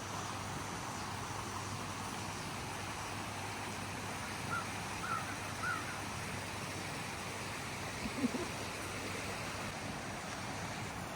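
Steady outdoor background hiss with a low hum, and a bird calling three times in quick succession a few seconds in. A brief low sound comes near the end.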